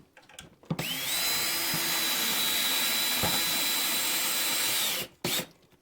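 Electric drill running for about four seconds: a whine that rises quickly as the motor spins up, then holds at one steady pitch before cutting off abruptly.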